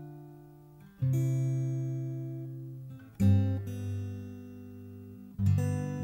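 Background music: acoustic guitar chords strummed three times, about two seconds apart, each left to ring and fade.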